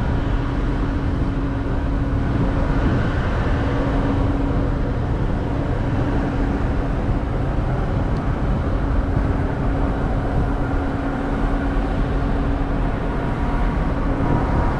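Steady mechanical drone of a cruise ship's funnel ventilation and machinery, a constant rushing noise with a faint even hum through it.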